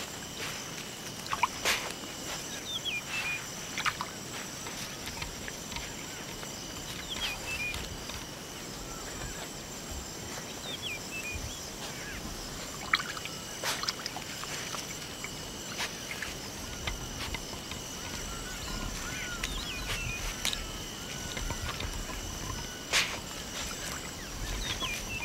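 Honey badger sloshing and splashing in shallow floodwater as it forages, with scattered sharp snaps and knocks. Behind it runs a steady high-pitched trill of insects.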